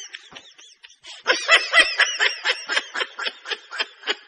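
High-pitched laughter in a quick run of short laughs, several a second, fainter at first and then steady from about a second in.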